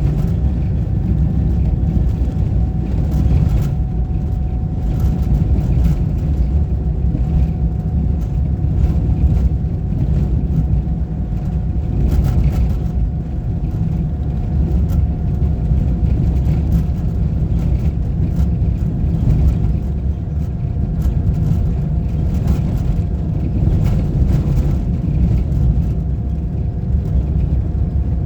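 Motor vehicle driving steadily, with a constant low engine and road rumble and a faint steady whine over it. Light knocks come through now and then.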